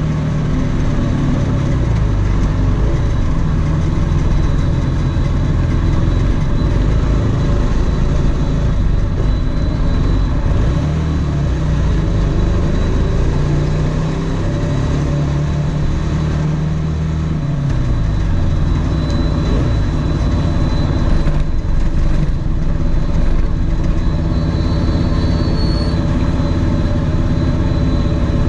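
Quadcopter's brushless motors and propellers buzzing loudly and close up, as heard from a camera mounted on the frame. The pitch slides up and down as the throttle changes in flight.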